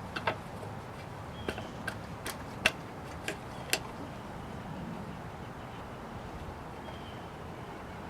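About eight sharp, irregular clicks and taps of hand tools and small metal parts being handled in the first four seconds, then only a faint steady low hum.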